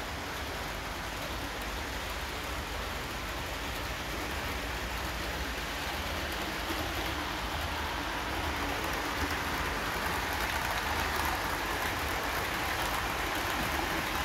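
Model railway train running along the layout track: a steady whirr of wheels and motor on the rails that grows gradually louder through the second half.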